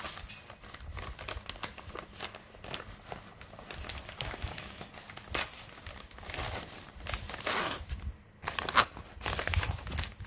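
Packaging of a cross-stitch kit crinkling and rustling in the hands as it is unwrapped, in irregular bursts that grow busier near the end.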